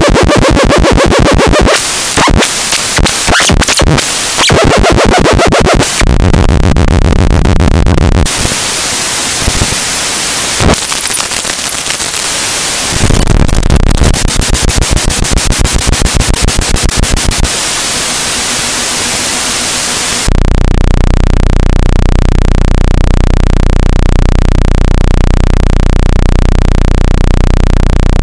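Harsh electric buzzing sound effect: a string of loud, rapidly pulsing buzzes that stop and start and change tone for the first twenty seconds, then settle into one steady low buzz.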